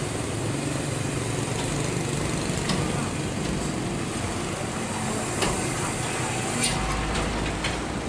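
Motor vehicle engines running in roadside traffic, with a few sharp knocks in the second half.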